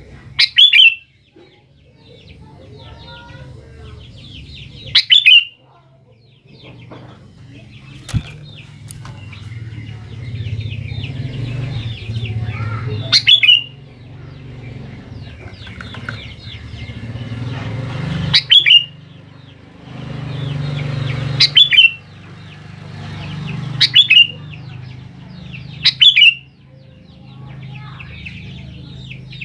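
Sooty-headed bulbul calling. Seven loud, sharp calls of about half a second each come at irregular gaps of two to eight seconds, with quieter rapid chattering between them. A steady low rumble sits underneath.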